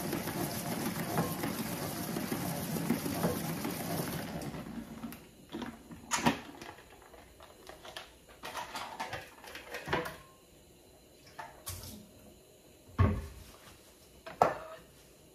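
Water running from a kitchen tap as lettuce is washed, shut off about four seconds in. Then scattered light clicks and handling knocks, with a deep thud and a sharp knock near the end.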